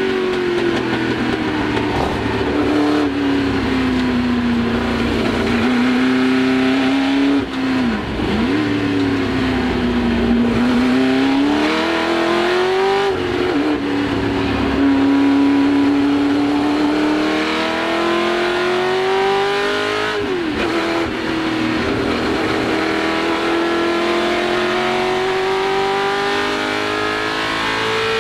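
Ford GT40 Mk1's small-block V8 heard from inside the cockpit at racing speed. The revs sink and waver at first, then the engine pulls hard, its pitch climbing steadily. Sudden drops at three upshifts come about halfway through, a little later, and near the end.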